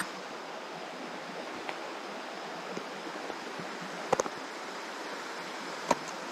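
A creek running with a steady rushing sound. About three short clicks come in quick succession about four seconds in, and one more near the end.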